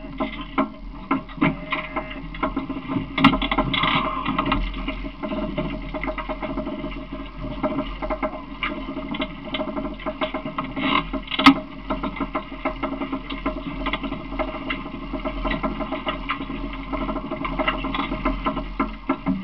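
Open cart rolling along, rattling and knocking steadily, with many short clicks and bumps from the moving frame and the handheld camera.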